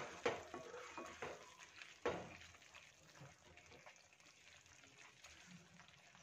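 Wooden spatula stirring a thick masala of peas in a kadhai, with a few soft knocks and scrapes against the pan in the first two seconds and a faint sizzle and bubbling of the simmering masala.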